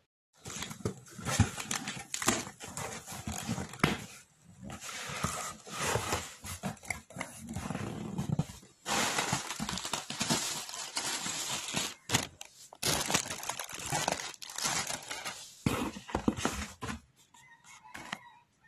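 Packing tape being pulled off and a cardboard box torn and opened by hand: crackling, ripping and rustling in stretches of a few seconds, with short pauses between them.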